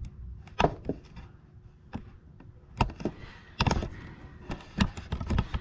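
A handful of irregular knocks and clunks, about six spread over several seconds, from handling on or around the truck's front end.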